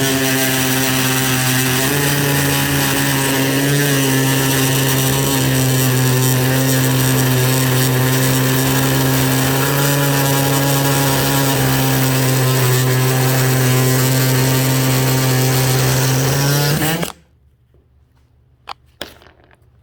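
DeWalt DCS356 brushless cordless oscillating multi-tool with a bimetal blade cutting through a stainless steel screw: a steady, loud buzz with a harsh metal-cutting rasp, the blade wedged in and under heavy pressure. The tool stops suddenly about 17 seconds in, followed by a few light clicks.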